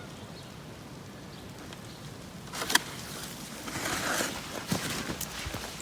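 Footsteps crunching on snow with a freezing-rain ice crust: a sharp crunch about three seconds in, then uneven crunching steps to the end, after a quiet start.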